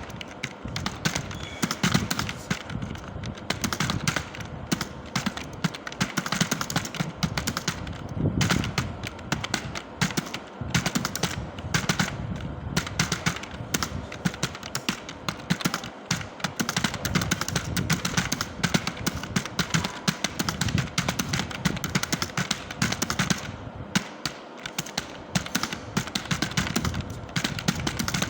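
Fast typing on a computer keyboard: a dense, irregular run of key clicks several per second, without pause.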